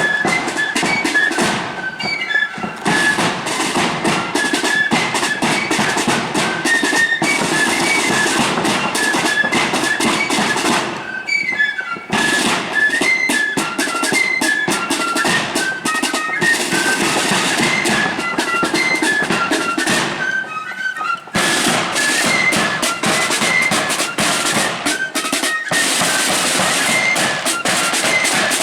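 A marching flute band playing a tune: many flutes playing the melody together over the band's drums.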